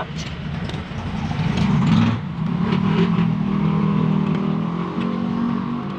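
A motor running with a steady low hum and a faint higher whine; it grows louder about a second and a half in and shifts pitch slightly soon after.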